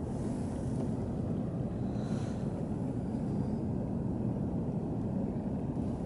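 Steady low rumble of wind buffeting the camera microphone outdoors in winter.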